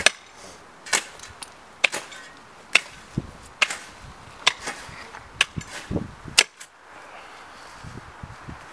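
Hand hoes chopping into soil, a sharp strike about once a second, about seven strikes, stopping after about six and a half seconds; a faint steady hiss follows.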